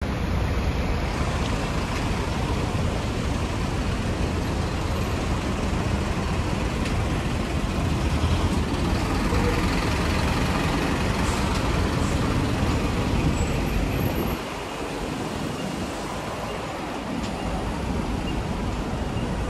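City street traffic noise, with a truck's engine running close by. Its low rumble drops away suddenly about two-thirds of the way through, and steadier road noise comes back faintly near the end.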